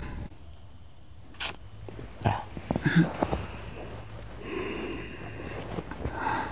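Crickets chirping in a steady high trill that pulses about twice a second, with a sharp click about a second and a half in and a few soft knocks and rustles after it.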